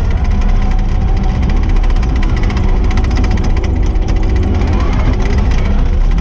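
Kubota SVL75-2 compact track loader's diesel engine running steadily at working speed, with frequent short clattering.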